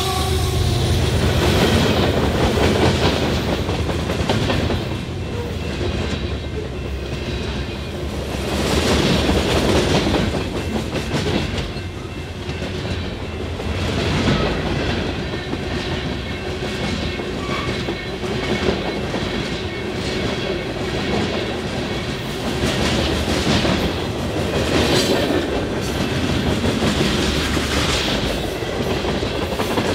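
Freight train rolling past close by, its cars' steel wheels clattering over the rail joints in a steady run.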